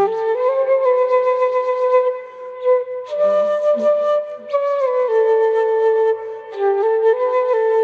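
Flute playing a slow, calm melody of long held notes that step gently up and down, easing off briefly between phrases about two and six seconds in.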